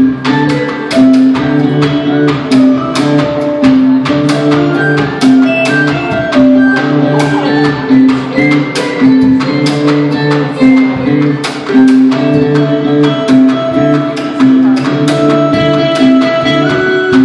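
A live band playing improvised music: a low pitched riff repeating over and over, with plucked notes above it and sharp percussive hits throughout.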